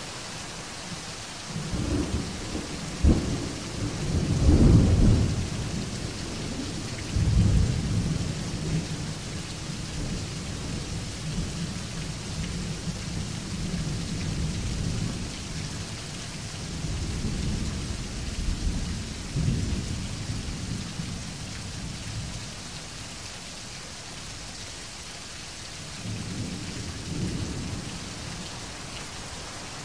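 Steady rain with rolling thunder: a sharp crack a few seconds in, the loudest rumble just after, then long low rumbles that die away and swell once more near the end.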